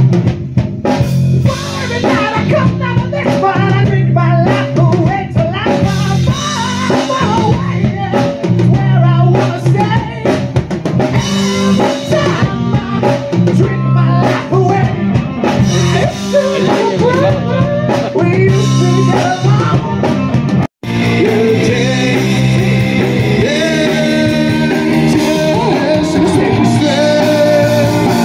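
A live rock band playing loud through a PA: drum kit, electric guitars and a male singer. The sound cuts out for an instant about two-thirds of the way through, then the song carries on.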